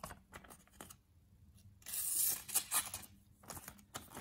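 The factory-edge 420 stainless blade of a Lion Tools 6590 pocket knife slicing a paper receipt in several short rasping strokes, the loudest about two seconds in. The edge cuts but rasps and snags the paper rather than slicing cleanly.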